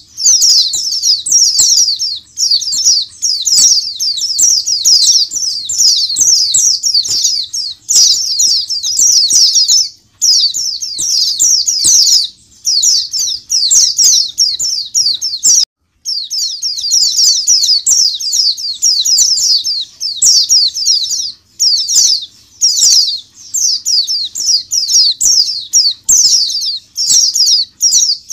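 A flock of white-eyes (pleci) chattering and singing together in a crowded cage: a dense, continuous twitter of rapid high-pitched chirps. The sound cuts out for a moment about halfway through.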